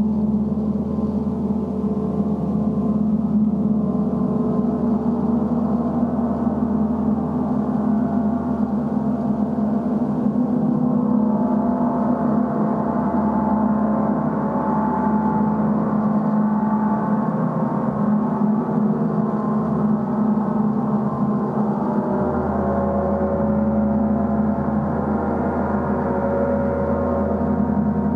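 Portable gong played continuously, giving a sustained wash of many overlapping ringing tones over a deep steady hum, even in loudness with no single strike standing out.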